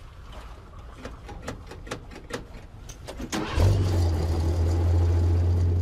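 Engine of a Spryte tracked over-snow vehicle starting abruptly about two-thirds of the way in, then running with a steady low drone. Before it, a few light clicks and knocks in the cab.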